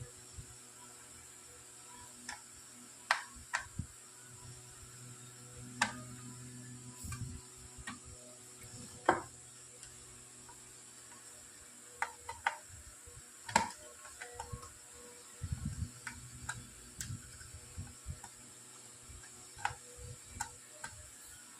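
Small amplifier's case being opened by hand: scattered light clicks and small knocks of handling, tools and screws, a dozen or so irregular ticks over a faint steady background.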